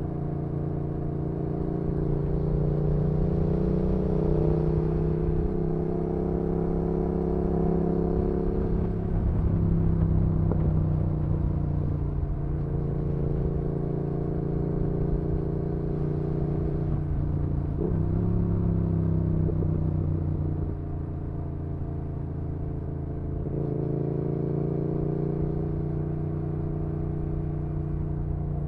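2019 Yamaha XSR700's parallel-twin engine running through an aftermarket IXRACE MK2 exhaust while cruising. The engine note holds steady, then drops and picks up again several times as the throttle is eased and reapplied through gear changes.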